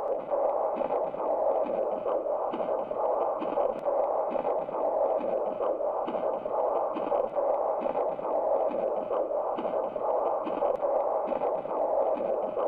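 Handheld pocket Doppler over the carotid artery, playing the blood flow through its small speaker as a rhythmic whooshing with each heartbeat. After each systolic whoosh comes a diastolic whoosh: blood flowing back toward the heart, the sign of aortic regurgitation.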